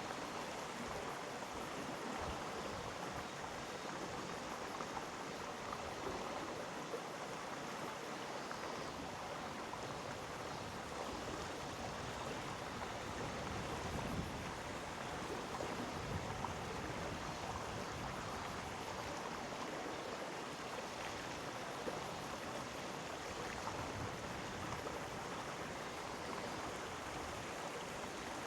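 Mountain stream flowing over rocks: a steady rushing of water, with small splashes flickering through it.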